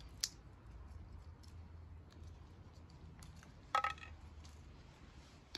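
Walnuts in the shell clicking faintly as they are handled in a wicker basket, with a sharp click just after the start and a short ringing clink against a china plate a little under four seconds in.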